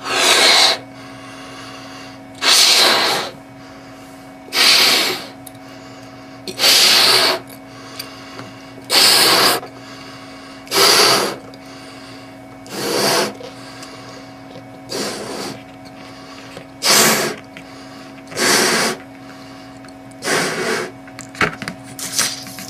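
Latex balloon being blown up by mouth: about eleven hard, breathy puffs into it, each under a second long and roughly two seconds apart, with a steady low hum underneath.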